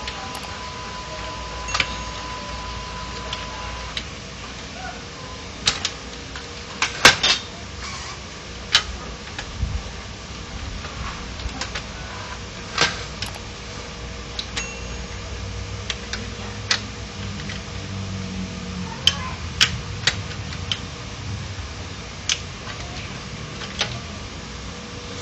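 Scattered clicks and knocks of plastic and metal printer parts being handled and pressed into place as an opened HP LaserJet 1010 laser printer's top cover and scanner assembly are fitted back on, over a faint steady tone.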